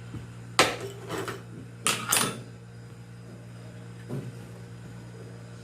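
A few sharp clatters and scrapes of a chrome faucet being handled and twisted at its wall fitting, three close together and a fainter one later, over a steady low hum.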